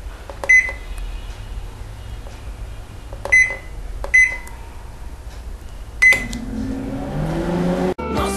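Microwave oven beeping four times, short sharp single-pitched beeps a few seconds apart, over a steady low hum. Soft music fades in near the end.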